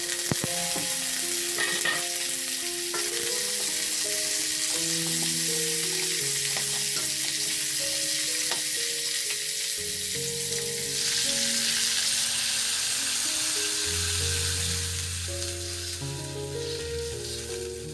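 Chicken wings, potato chunks, ginger and shallots sizzling in hot oil in a wok as they are stirred, with a few clicks of the utensil near the start. The sizzle grows louder about eleven seconds in and eases toward the end. Soft background music of single notes plays underneath.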